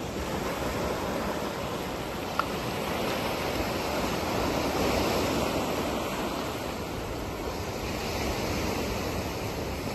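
Sea surf washing over a rocky shore, a steady rush of breaking waves that swells a little near the middle, mixed with wind on the microphone. A single short click sounds about two seconds in.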